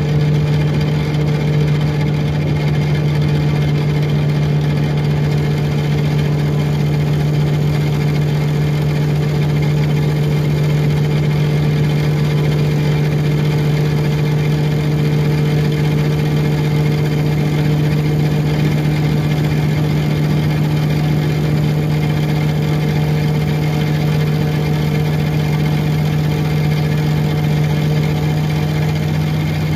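2006 Orion VII first-generation hybrid bus's diesel engine and hybrid drive running at a steady speed, a constant low hum with no rise or fall in pitch.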